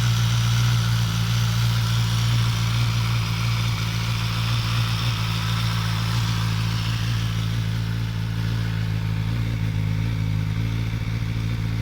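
Suzuki GSX-S1000 inline-four engine idling steadily after a cold start, with a rattle from the cold engine that the owner finds strange. The higher, rattly part of the sound eases off somewhat in the second half.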